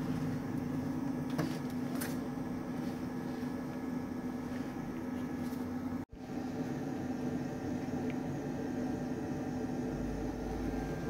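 Luminous home inverter running with a steady electrical hum. The hum cuts out for an instant about six seconds in, then carries on unchanged.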